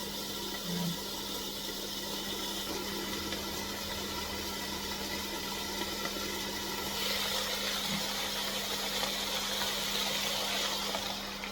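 A steady mechanical hum, with a hiss that swells from about seven seconds in and falls away at the end.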